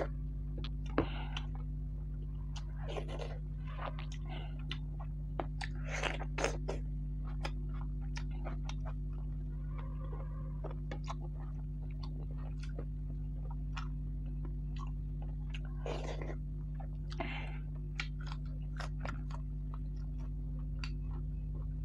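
Close-miked eating: chewing and crunching, with short crisp cracks of papad (pappadam) being broken and bitten scattered throughout. A steady low hum runs underneath.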